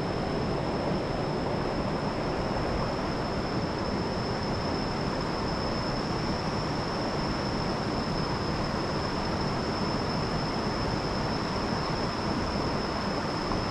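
Steady rush of a mountain river flowing over rocks, with a thin, steady high-pitched whine above it.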